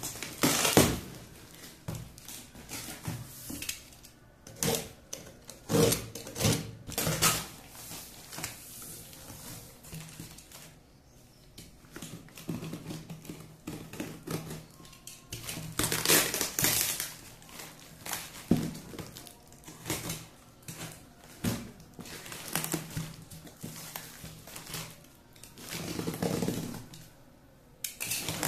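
Cardboard box and brown packing tape being torn and pulled apart by hand: irregular bursts of ripping and rustling, some sharp and loud, with quieter handling between them.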